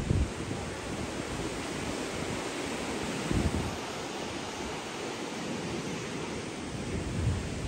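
Wind buffeting the microphone over a steady hiss of outdoor wind, with low rumbling gusts about three and a half seconds in and again near the end.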